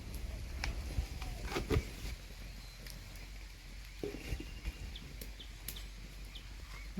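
A few sharp knocks in the first couple of seconds, likely from the cooking pot and utensils, then quiet outdoor background with a low hum and a few short, faint bird chirps.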